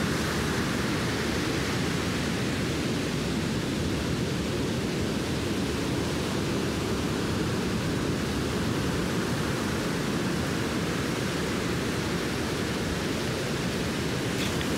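Steady rush of waves breaking on a beach, with a few short clicks near the end.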